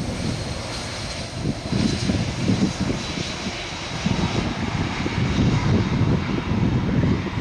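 Boeing 747-400F's four turbofan engines running during its landing roll, a steady jet rumble with a faint high whine.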